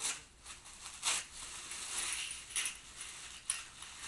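Gift packaging being handled and unwrapped: paper rustling, with several sharp clicks and knocks, the loudest just after the start and about a second in.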